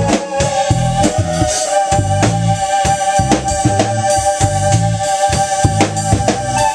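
Small band playing live: a keyboard holds organ-like chords while an electric bass and a drum kit play a steady beat underneath.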